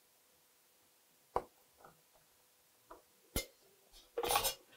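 Sharp knocks and clinks from plastic drain-pipe fittings and a ceramic washbasin being handled during pipe installation. There is one knock about a second and a half in, a louder one about three and a half seconds in, then a brief louder clattering scrape near the end.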